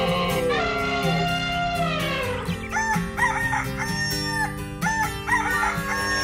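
Background music with sustained notes, over which a long arching animal call sounds across the first two seconds or so, followed by shorter repeated calls.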